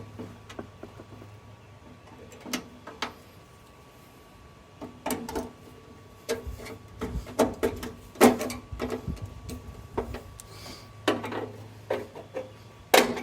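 Irregular clicks, taps and clatter from hands handling tools and small parts, over a faint steady low hum. The clatter is busiest in the second half, with the loudest knocks about eight seconds in and near the end.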